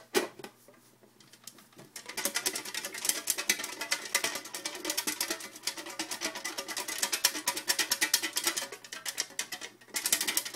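Fast, dense rattling clicks for several seconds, starting about two seconds in, as the items for a raffle draw are shaken.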